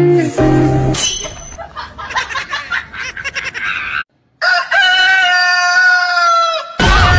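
A long, high crowing cry, like a rooster's, held on one pitch for about two seconds after a brief silence. Before it comes a stretch of noisy rustling and clicks.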